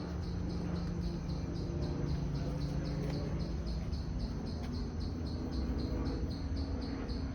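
Insects calling in tropical forest: an even, high pulsing chirp repeating about four times a second, over a constant low hum.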